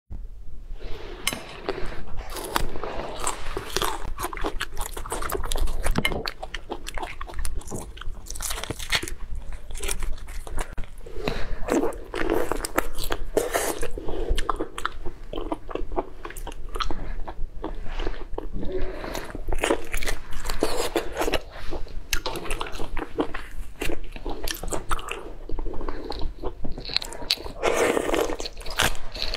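A person biting into and chewing a large soy-marinated prawn, with wet smacking mouth sounds and many crisp little crunches and clicks throughout.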